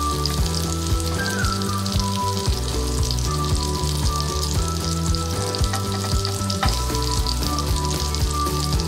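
Beef seekh kababs sizzling steadily in shallow oil in a grill pan on medium heat, with one click about six and a half seconds in, over background music.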